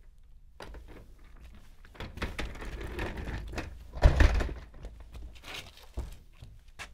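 Studio foley of rustling and handling noises, with a heavy thump about four seconds in and a few light knocks and clicks.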